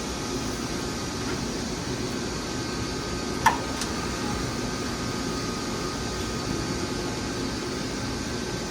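Steady mechanical hum with faint steady whining tones, like ventilation and running machinery in an industrial shop. About three and a half seconds in there is one sharp clink with brief ringing, then a lighter tick.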